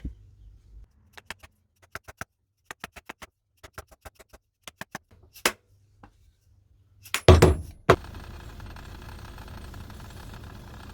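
Light, irregular knocks and taps on the old masonry hammer as its head is knocked off the wooden handle, with a louder knock about five and a half seconds in and a loud burst of sound about seven seconds in. From about eight seconds a steady machine noise runs on.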